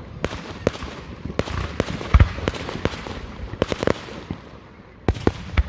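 Fireworks going off: a rapid, irregular series of bangs and crackling pops, the loudest bang a little after two seconds in.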